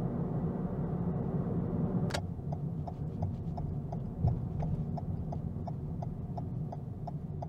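Car cabin with low road and engine rumble; about two seconds in a sharp click, then the turn-signal indicator ticking steadily, about three ticks a second, as the car turns. A single thump a little past four seconds.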